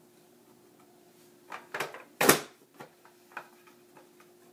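Plastic clicks and knocks from a Vidalia Chop Wizard food chopper being worked, with one loud chunk about halfway through as its blade lid is pushed down through the food, then a few lighter clicks. A faint steady hum sits underneath.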